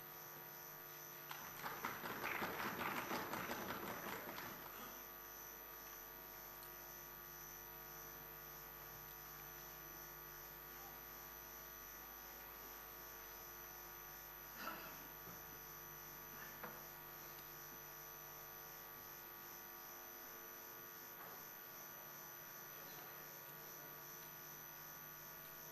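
Brief applause in the assembly hall, dying away about five seconds in, then a steady electrical hum on the broadcast feed with two faint knocks in the middle.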